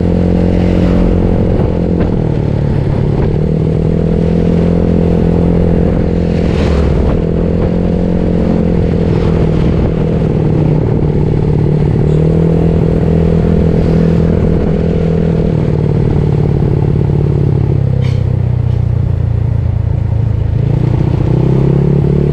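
Yamaha Mio Soul scooter's single-cylinder four-stroke engine, fitted with a 58 mm piston and stock valves, running under way. The engine pitch rises and falls several times as the throttle opens and eases off, dropping lower for a few seconds near the end before climbing again.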